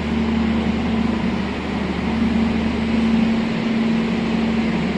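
Steady low mechanical hum: a constant drone with an even rushing noise over it, unchanging throughout.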